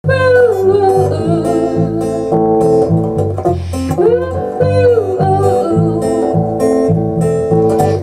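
Live song with a woman singing a melody with vibrato, accompanied by a strummed acoustic guitar and an electric bass.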